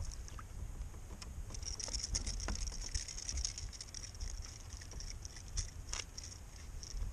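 Light irregular ticks and patter as a just-caught pickerel is handled on the line with the jerkbait, over a low steady rumble.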